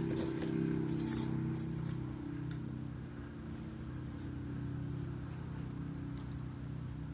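A steady low hum from an unseen machine or fan, with a few faint clicks and a short scrape in the first couple of seconds as PVC pipe and plastic fittings are handled.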